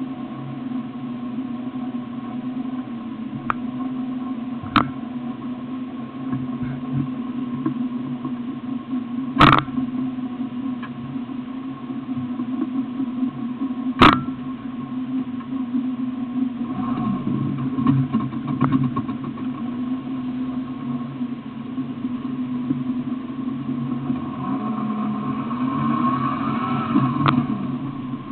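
Off-road vehicle's engine idling steadily, with three sharp knocks along the way. Near the end the engine revs up as the vehicle sets off.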